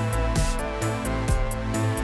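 Background music with a steady beat: a low drum hit about twice a second under held, sustained tones.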